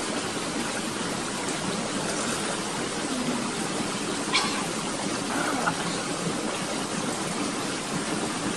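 Steady rushing of a stream running over rocks, with a single brief click about four and a half seconds in.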